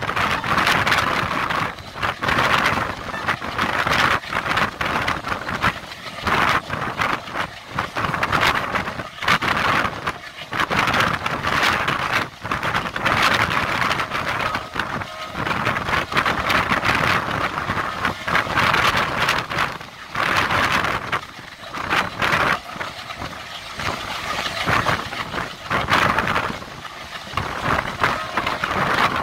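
Passenger coach running along the line at speed, heard from its open doorway: a steady rumble of wheels on rail, with rushing air that swells and fades unevenly.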